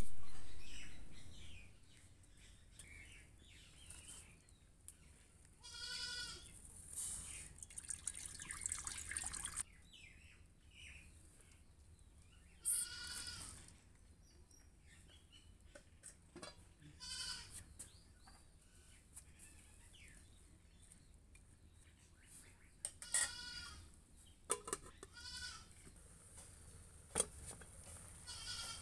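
Goats bleating about six times, short wavering calls a few seconds apart. At the very start there is a loud metallic clank that fades away, as the aluminium wok is set down on the clay stove.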